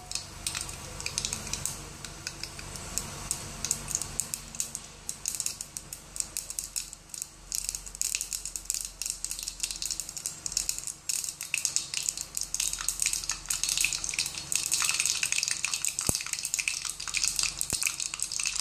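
Mustard seeds spluttering in hot oil in a small stainless-steel pot, a dense run of irregular sharp pops and crackles. The popping grows busier about five seconds in and is thickest near the end as the seeds heat up for the tadka.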